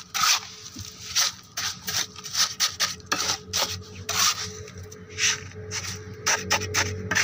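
A steel trowel scraping and pressing a wet concrete-and-gravel mix into a tuff tile (concrete paver) mould: a run of short, gritty scrapes, roughly two a second, over a steady low hum.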